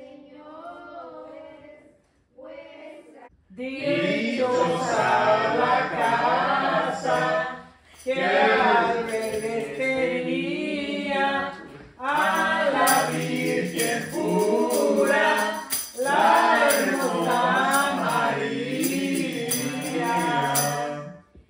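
A group of people singing a Spanish Christmas song together: softly at first, then loud phrases a few seconds long with short pauses between them. A tambourine jingles along in the later half.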